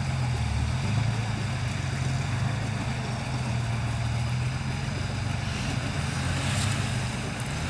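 Off-road vehicle engine running steadily at low revs.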